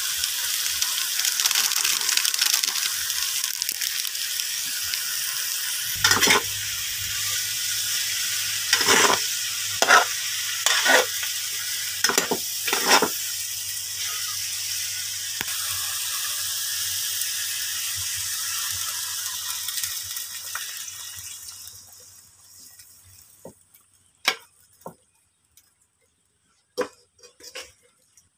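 Takway (taro runners) frying in a metal cooking pot with a steady sizzle, while a metal spatula stirs and knocks against the pot several times in the middle. The sizzle dies away about three-quarters of the way through, leaving a few sharp clinks.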